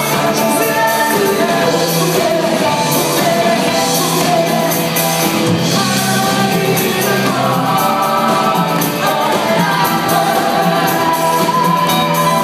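A live rock band playing, with a woman singing lead over electric guitars, bass and drums.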